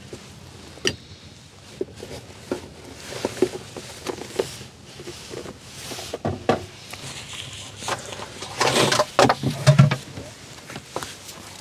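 Scattered knocks and clatter of things being handled in a small room, like doors and drawers being opened and closed, with a louder, denser run of clatter about nine seconds in.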